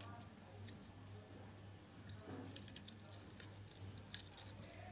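Faint small clicks and rustles of dried flower sprigs and a glass bulb vase being handled, over a low steady hum.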